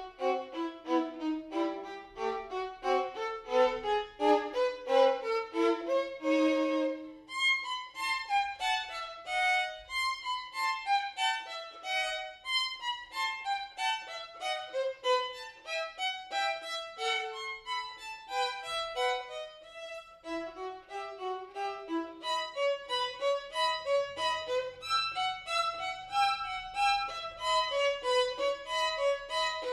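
Violin playing a classical study in quick runs of notes, many of them falling in steps, with no break.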